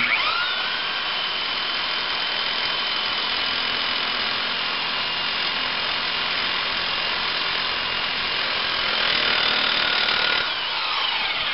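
Reciprocating saw (Sawzall) cutting through the steel stud of a seized stabilizer bar link: its motor whine rises as it starts, runs steadily, and falls away as it winds down near the end. The link is being cut off because its Torx stud stripped and spins in place.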